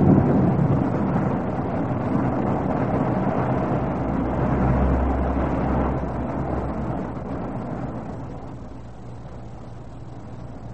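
Rain and a low rumble of thunder, a steady rushing noise that swells about halfway through and then fades down.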